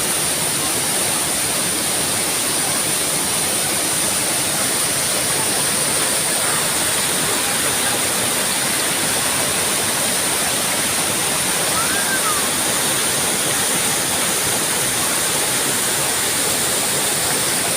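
Mountain waterfall crashing into a river pool: a steady, unbroken rush of falling water.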